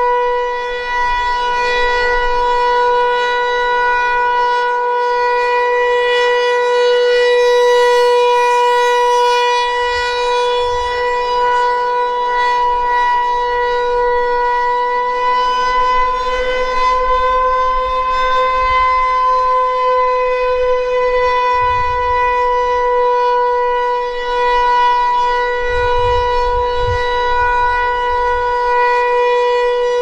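Federal Signal Equinox electronic warning siren sounding one long steady tone during a test, its horn rotating; the pitch lifts slightly for a few seconds past the middle and then settles back.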